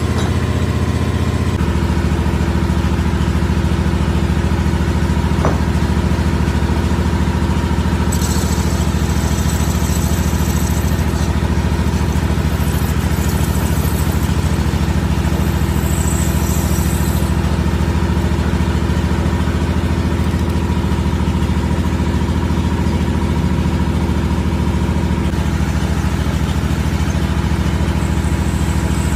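Metal-turning lathe running, its motor and gearing giving a steady low hum. A high hiss comes and goes twice as the tool cuts the steel ring.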